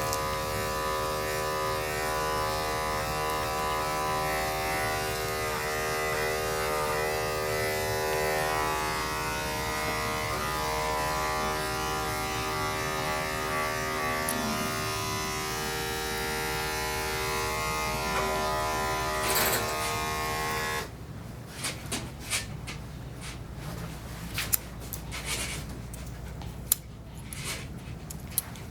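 Electric dog-grooming clippers running with a steady hum while trimming a dog's face. The clippers cut off about two-thirds of the way through, followed by a scattering of sharp clicks.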